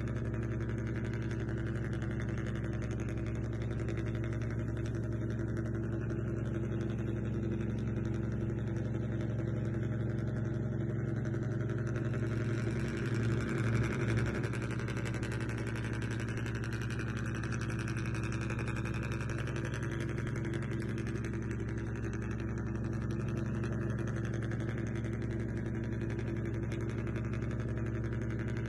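Remote-control model ferry's engine sound running steadily: an even, low drone at one constant pitch, briefly swelling louder about halfway through.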